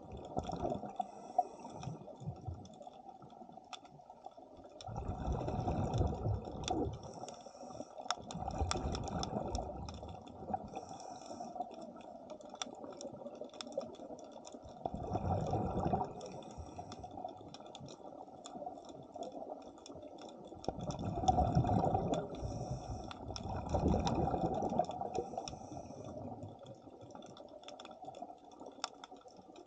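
A diver's exhaled breath bubbling out of a scuba regulator underwater, in bursts every few seconds.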